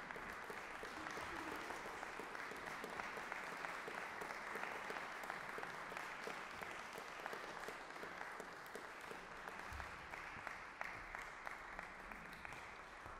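Audience applauding steadily, thinning a little near the end.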